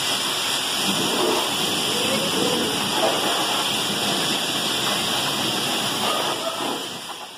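High-pressure water jet spraying against a truck's bodywork and wheels: a steady hiss of spray and splashing that fades out near the end.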